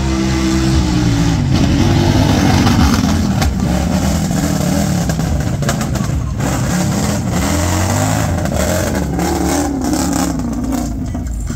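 Big-tire ATV engine revving hard, its pitch rising and falling over and over as the machine is driven through the course.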